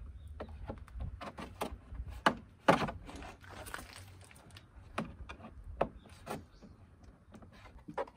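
Plastic clips and trim of a Toyota HiAce door panel clicking and knocking as the panel is pried loose from the door with a plastic trim tool. The knocks come irregularly, the loudest about two and a half seconds in.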